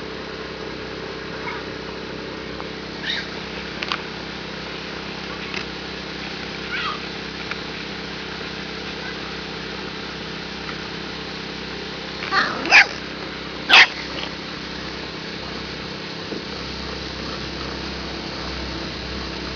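Bulldog-type puppy yelping in short, high-pitched cries, a few scattered calls and then a louder cluster of three about twelve to fourteen seconds in.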